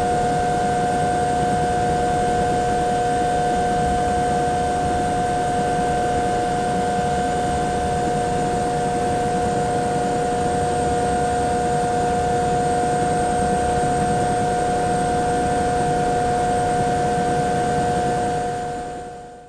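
Bell 212 helicopter idling, heard from inside the cabin: its twin turboshaft engines give a steady whine of several constant high tones over a noisy rumble. The sound fades out near the end.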